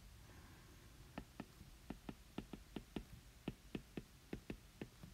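Stylus tip tapping and clicking on a tablet's glass screen during handwriting: a quick, irregular run of light clicks, about three or four a second, starting about a second in.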